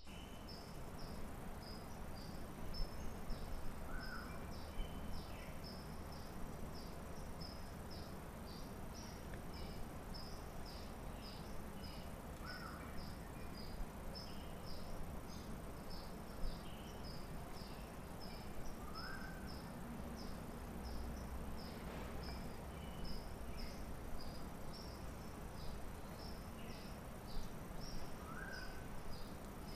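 Background insect chirping: short, high-pitched chirps repeat about twice a second throughout. A lower, short rising call comes four times, roughly every eight seconds, over a faint steady low hum.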